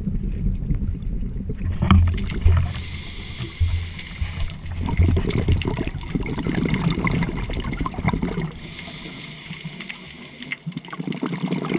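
Underwater sound of a scuba diver breathing through a regulator: exhaled bubbles rumbling and gurgling in irregular bursts. It eases off for a couple of seconds near the end, then picks up again.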